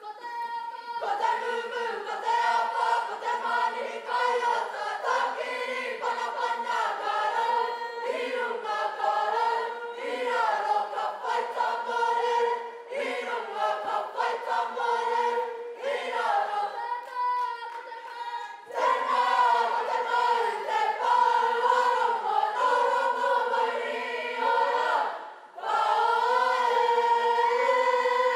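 A kapa haka group of male and female voices singing a Māori waiata together, in phrases with short breaths between them. About 25 s in there is a brief dip, then the singing resumes louder.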